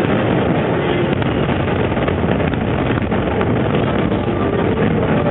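Wind buffeting the microphone in a steady, loud rumble, with a few faint pops.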